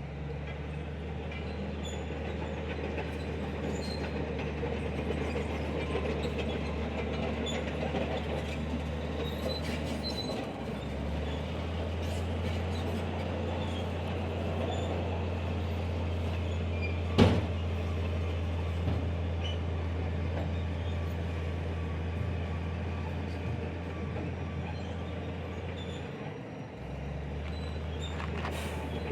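Heavy earthmoving machinery's diesel engine running with a steady low drone, its note dipping briefly twice. A single sharp knock comes a little past halfway.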